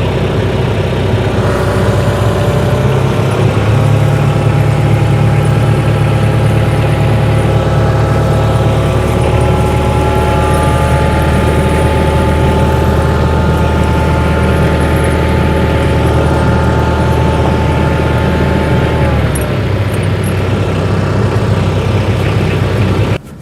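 Tractor engine running steadily with a whining note layered over its low hum. The whine falls away about three-quarters of the way through, and the engine cuts off abruptly at the very end.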